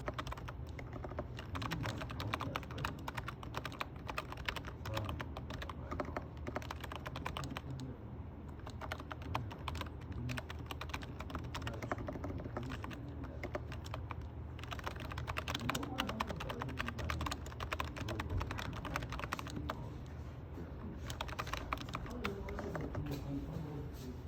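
Typing on a computer keyboard: a rapid, irregular run of key clicks with short pauses now and then.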